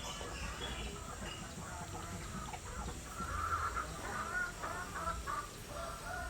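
Chickens clucking in a run of short calls, busiest in the middle, over a low steady rumble.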